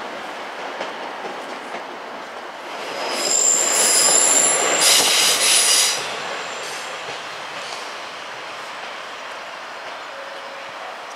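Class 185 diesel multiple unit running in on a curved track. Its wheels squeal in several high steady tones for about three seconds from about three seconds in, over the train's running noise, which then eases back to a lower steady rumble.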